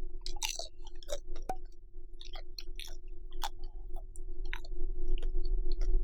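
Close-miked chewing of bacon-wrapped rice cakes (tteokbokki): irregular wet smacks and crisp clicks of mouth and food. A steady low hum runs underneath.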